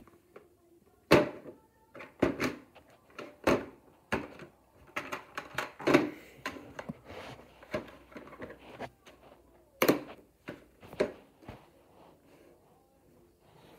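A VHS cassette and its case being handled on top of a VCR: a string of plastic clicks, knocks and rubbing as the tape is taken out of its case. The sharpest knocks come about a second in, in the middle and near ten seconds.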